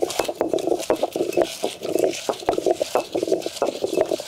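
Traditional hand-turned stone grinder, a cylindrical grinding stone rolling in a round stone basin, grinding grated coconut with roasted red chillies and sesame. Stone grinds on stone in a rhythmic rumble about twice a second, with sharp clicks.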